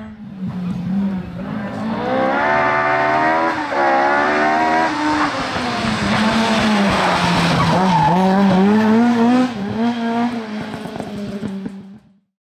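Ford Escort RS1600 rally car's engine revving hard at speed, its pitch climbing through the gears twice in quick succession. It dips briefly around the middle as the driver lifts, then pulls again, and the sound cuts off suddenly just before the end.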